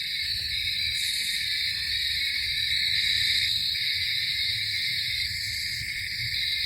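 Night insect chorus: a steady, unbroken high-pitched buzzing in the woods.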